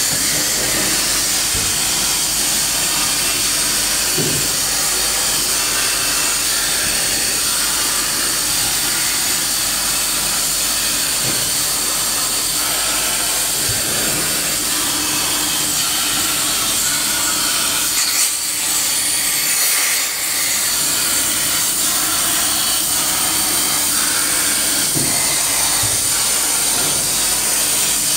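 CNC plasma torch cutting steel plate: a steady loud hiss with a thin high whine over it, wavering briefly about eighteen seconds in.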